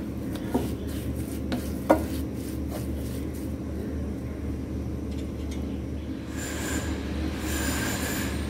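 A wooden spatula stirs and scrapes a paste of bhringraj, curry and neem leaves in coconut oil in a nonstick frying pan, with a sharp knock against the pan about two seconds in. Then the stirring stops and the herb paste bubbles in the hot oil over a steady low hum.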